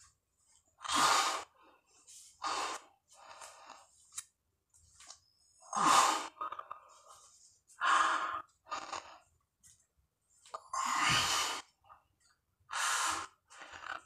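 A man breathing hard through his mouth under heavy exertion, with a loud rushing breath every one to two seconds between slow push-ups well past his hundredth rep.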